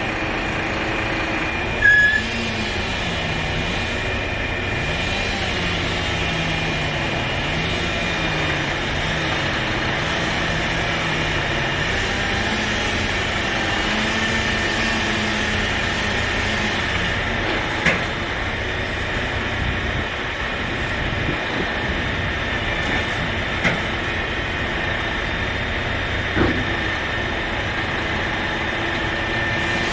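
Crane's engine running steadily under load, its low pitch rising and falling repeatedly over the first several seconds, with a few short sharp knocks scattered through.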